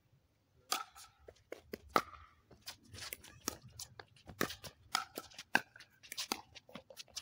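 Pickleball paddles striking the hard plastic ball in a fast rally, along with the ball bouncing on the court: a quick string of sharp pops, several a second, starting just under a second in.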